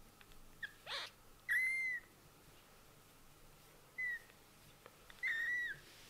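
A newborn kitten mewing: four thin, high-pitched cries, two brief and two about half a second long, with a short rustle about a second in.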